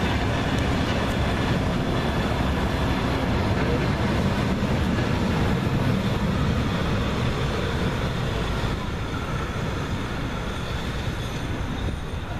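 A train of passenger coaches rolling past on the rails as the class 52 steam locomotive hauls it out, working hard. A steady rumble that drops somewhat after about eight seconds as the train draws away.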